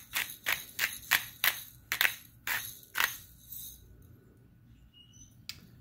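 Pepper mill grinding black peppercorns in quick, even twists, about three grinding strokes a second, stopping a little past halfway.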